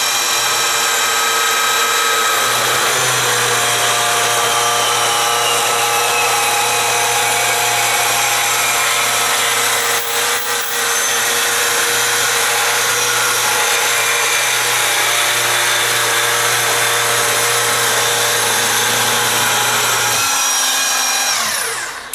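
Lefon Lite 4 tube saw running and cutting through 2.5-inch stainless sanitary tubing: a loud, steady motor whine with a low hum under it while the blade is in the cut. The sound briefly dips about ten seconds in and winds down near the end as the cut finishes.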